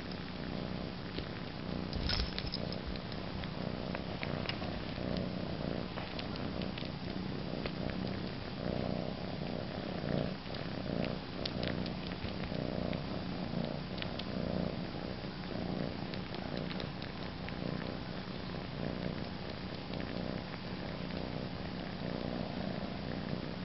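Domestic cat purring steadily while suckling on a fleece blanket, with soft sucking clicks coming through the purr, a brief cluster of them about two seconds in.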